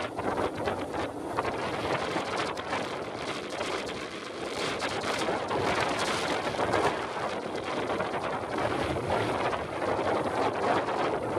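Small motorcycle riding along a dirt track: wind rushing over the microphone, mixed with engine and tyre noise on the loose surface and many small knocks from the bumps.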